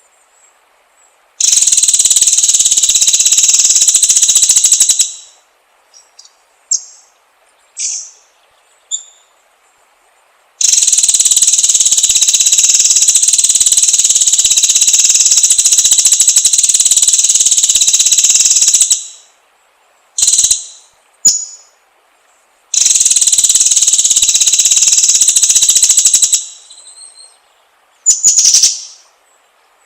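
White-rumped shama song on a training recording. It comes as three long, loud, buzzing trills, the middle one about eight seconds, with short chirps between them.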